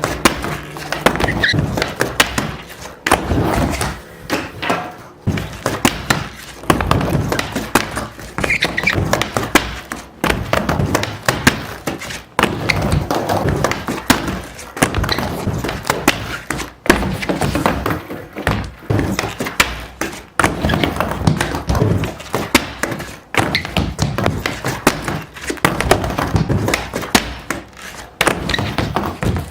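A skateboard rolling back and forth on a wooden mini ramp, with frequent thunks as the board's tail and trucks knock against the ramp and coping.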